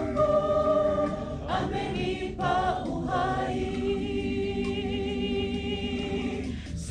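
Mixed choir of men and women singing a Swahili hymn unaccompanied, moving through several notes and then holding one long chord for the last few seconds.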